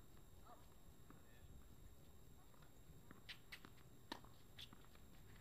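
Near silence: faint outdoor ambience with a few faint sharp clicks about three to four and a half seconds in, the strongest just after four seconds.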